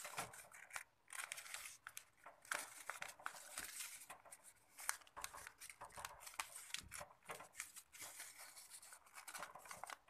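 A sheet of paper being folded and creased by hand: a faint, irregular run of small crackles and rustles as the flaps are pressed and tucked.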